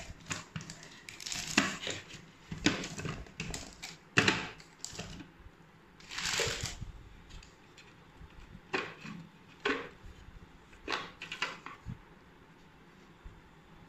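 Parts of a Preethi Zodiac mixer grinder's master chef food-processor jar being handled and taken out: irregular clicks and knocks of plastic and metal pieces, with a longer scraping rustle about six seconds in.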